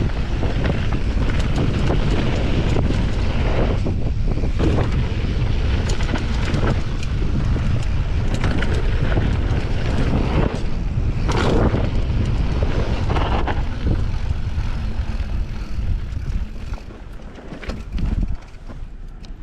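Wind rushing over the microphone of a mountain bike riding fast downhill, with knocks and rattles from the bike over bumps. It eases off near the end as the bike slows.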